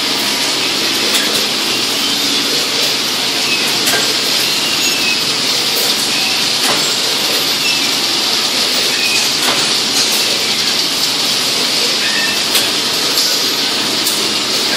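Packing-line machinery running steadily, a loud continuous mechanical rattle and hiss, with a few sharp clicks and faint short high squeaks scattered through it.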